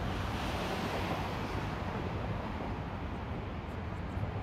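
Steady wash of noise with a low rumble: wind buffeting the microphone mixed with traffic on the bridge roadway.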